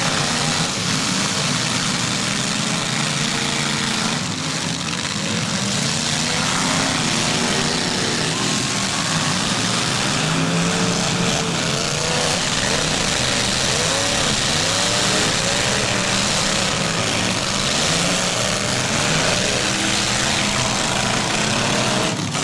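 Several demolition derby car engines running and revving, their pitch rising and falling over and over, over a dense wash of noise.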